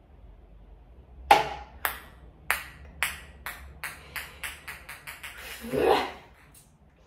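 A ping pong ball bouncing on a table, about a dozen light clicks that come faster and fainter as it settles, starting with a sharp first hit about a second in. A brief louder sound follows about six seconds in.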